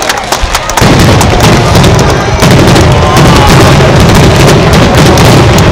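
Aerial fireworks shells bursting overhead: sharp crackling bangs, swelling about a second in into a loud, continuous din of booms and crackle.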